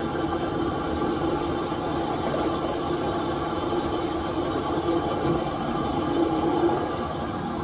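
A steady machine hum with a constant low tone, like an engine or motor running at idle.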